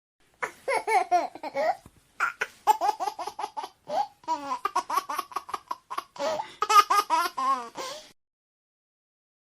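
A baby laughing in fits of quick, high-pitched laughs, in about four bouts with short breaks between them, stopping shortly before the end.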